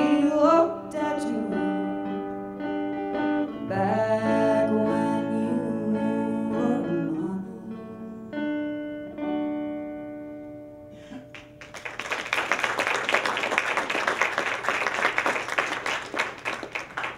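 A woman singing over a plucked archtop guitar, the last notes held and ringing out as they fade. About two-thirds of the way in, the audience breaks into dense applause that lasts to the end.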